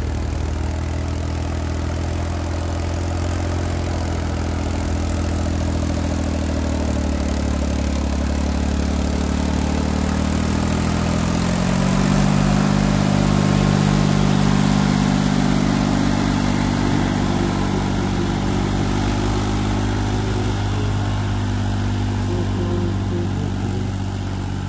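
Swaraj 744 FE tractor's diesel engine running steadily under load as it pulls a trailer heaped with wet earth through mud. The engine gets louder about halfway through as the tractor passes close, and its note shifts there.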